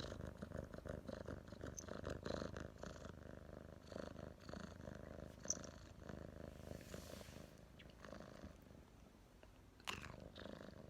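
Domestic cat purring, a fast pulsing rumble that grows fainter after the first few seconds, with a brief sharper sound near the end.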